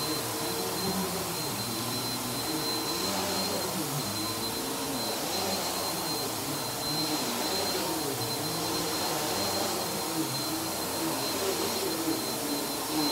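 Upright vacuum cleaner running steadily with a high whine, its brush roll working through a thick shag rug as it is pushed back and forth, the motor note wavering a little with the strokes.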